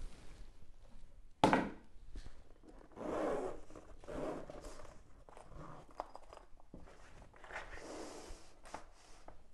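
Zipper of a soft fabric riflescope travel case being pulled open in several noisy runs, with one sharp knock about one and a half seconds in as the case is handled.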